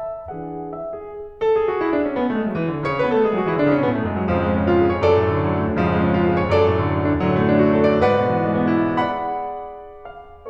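Background piano music: a few single notes, then about a second and a half in a louder run of notes falling in pitch into low sustained chords, fading out near the end.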